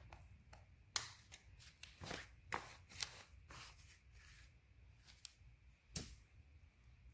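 Faint handling sounds of satin fabric being worked by hand: brief rustles with a few sharp clicks and taps, the loudest about a second in and again near the end.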